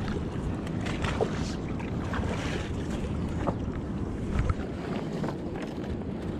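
Wind noise on the microphone over the rush of river water, with a few light knocks and clicks scattered through it.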